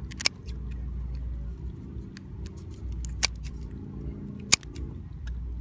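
Steel kitchen shears snipping through hard-shelled blue swimmer crab: sharp crunching clicks, three loud snips among several fainter ones, over a steady low hum.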